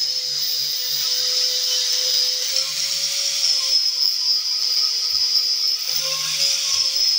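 Angle grinder running with a steady high whine, its red abrasive disc grinding the steel blade of an antique file knife to take off rust.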